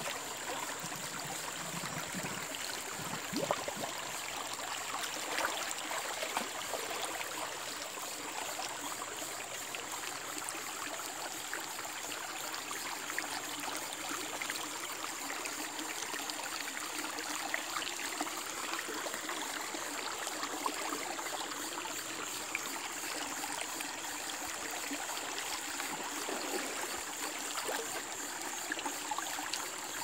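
Shallow forest stream running over stones in a small riffle: a steady flow of rushing, trickling water.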